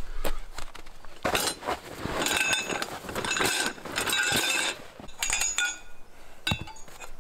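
Metal poles clinking and rattling against each other as they are tipped out of a canvas bag and laid out, in several bursts with a short ringing tone after the knocks.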